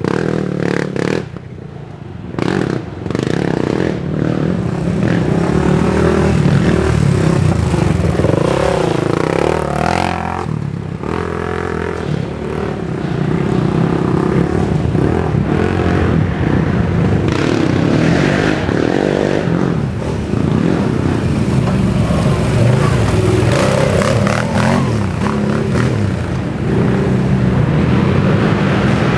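Racing quad (ATV) engines revving hard, the pitch rising and falling with the throttle as the quads ride the trail, with a short lull about two seconds in.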